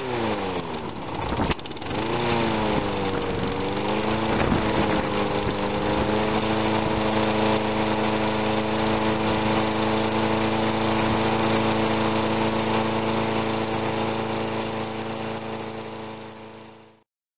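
Walk-behind lawn mower engine just started on the first pull. Its speed sags and wavers for the first few seconds, then settles into a steady run, and the sound cuts off suddenly near the end.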